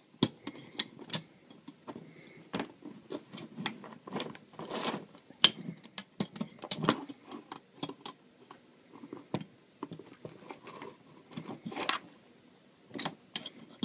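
Steel pliers clicking and clinking against the steel trigger and frame of a Bridger T3 dog-proof raccoon trap as the trigger is gripped and bent slightly. Irregular short metallic knocks at uneven intervals.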